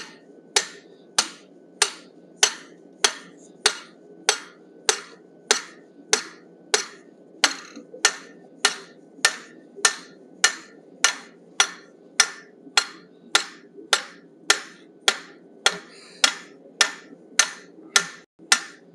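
Steady hand-hammer blows, about three every two seconds, each a sharp ringing strike on the glowing end of a 1-inch square steel bar held upright. The bar is being upset, shortened and thickened to gather mass.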